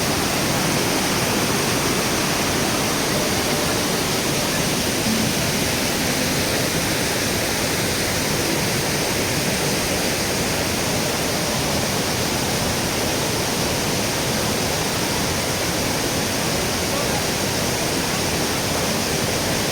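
Kravica waterfalls on the Trebižat river: water pouring over the falls in a steady, even rush.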